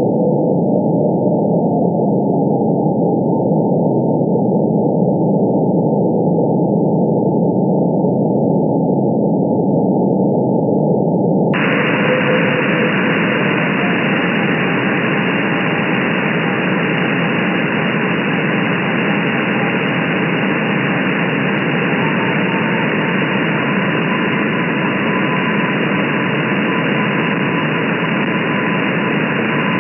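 Shortwave receiver hiss and static from an SDR in upper-sideband mode, with the weak Morse code signal of the M12 number station as faint tones barely above the noise. About eleven seconds in, the receiver's audio filter widens and the hiss suddenly becomes brighter.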